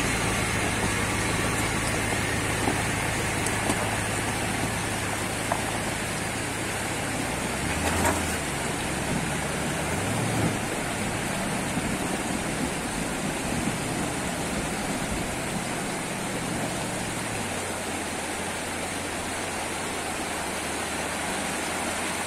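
Swollen river rushing steadily, with a pickup truck's engine running low underneath as the truck drives away through the water, fading out after about seventeen seconds. A couple of short thumps come about eight and ten seconds in.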